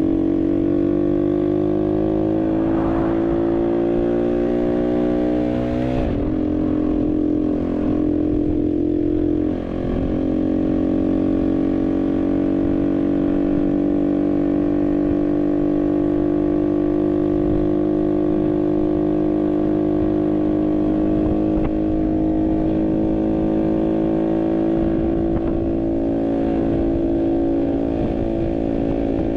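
Barton Volcano 50cc moped engine running under way: the revs climb for the first few seconds, dip briefly about six seconds in, then hold fairly steady with a slow rise.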